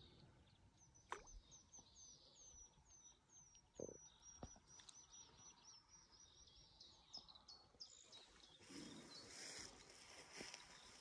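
Faint songbird singing a run of short, high, falling notes, about four a second, with a couple of soft knocks and a faint hiss near the end.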